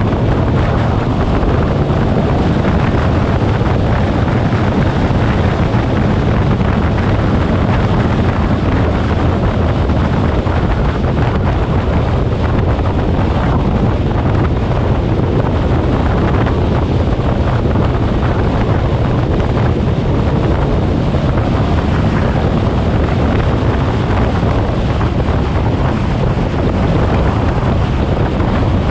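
Twin-turbo Nissan 350Z running at a steady speed, its engine drone under heavy wind noise on the microphone, with no revving or gear changes.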